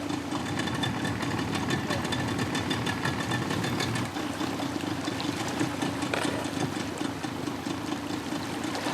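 Outboard motor of a river pirogue running steadily at low speed with an even, rapid firing rhythm.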